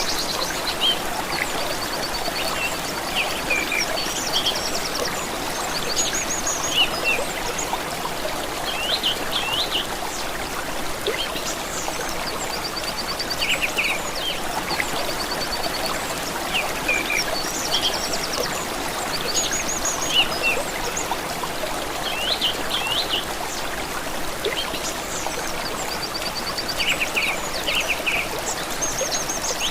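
Stream of water flowing steadily, with several songbirds calling over it: quick trills of repeated high notes and short curved chirps, scattered throughout.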